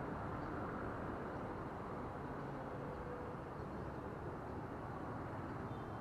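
Steady low outdoor background rumble with no distinct sound standing out.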